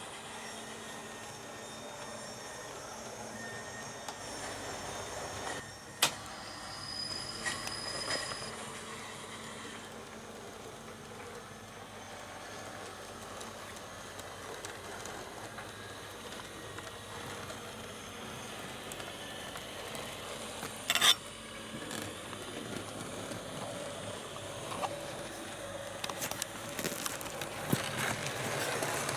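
Locomotive sounds from a Hornby HM7000 sound decoder, played through an OO gauge model locomotive's speaker as it runs, a steady running sound broken by a sharp click about six seconds in and a double click a little before the end.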